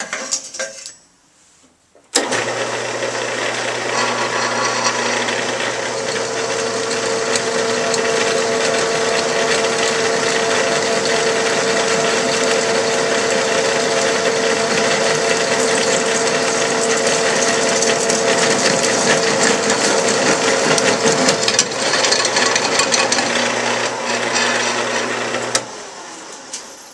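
Delta Rockwell 17-inch drill press running on its slow speed attachment, a Morse-taper twist drill boring slowly through thin aluminium plate. It starts abruptly about two seconds in, runs steadily with a low hum and a higher whine, and dies away near the end.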